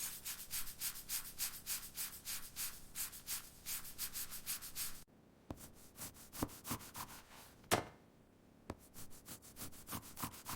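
Rapid rhythmic scraping or rubbing strokes, about four to five a second, for roughly the first half. After a sudden break come slower, scattered strokes and light ticks, with one sharper click about two-thirds of the way through.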